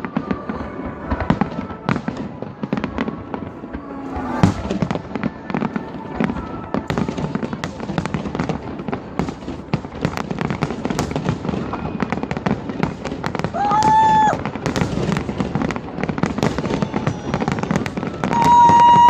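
Fireworks salute crackling with a dense run of rapid pops throughout. Two steady whistle-like tones of about a second each sound, one a little past the middle and a louder one at the end.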